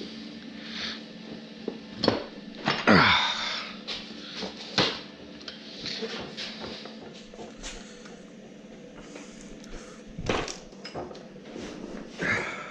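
Metal tools and engine parts clinking and clattering during a workshop engine teardown, a scatter of sharp knocks with the loudest clatter about three seconds in, over a steady low hum.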